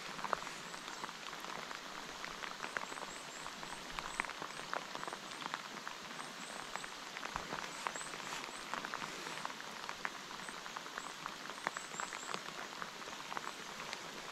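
Heavy rain falling on a reservoir's surface: a steady hiss made of countless small drop ticks. Faint high chirps come now and then.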